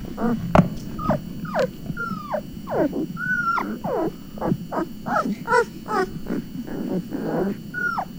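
Newborn puppies whimpering and squealing: a quick string of short high squeaks, most sliding down in pitch, several a second.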